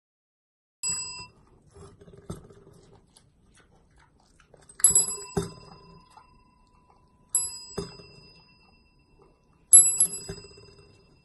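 Chrome desk bell pressed by a pig's snout, rung four times a few seconds apart, each ring fading out slowly, with softer low sounds from the pig around the rings.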